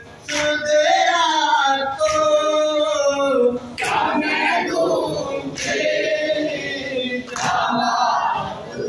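A group of men and boys chanting an Urdu noha (Muharram lament) together, led by a reciter at a microphone. A sharp slap of chest-beating (matam) lands about every two seconds, keeping the beat of the chant.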